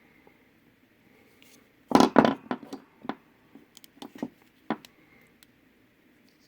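Small hand tools being handled on a work surface: a quick cluster of sharp clicks and knocks about two seconds in, then scattered lighter clicks for a couple of seconds.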